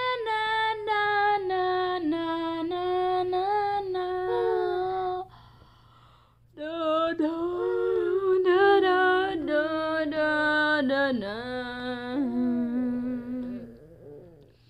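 A woman humming a wordless lullaby tune in long, held notes, in two phrases with a pause of about a second between them.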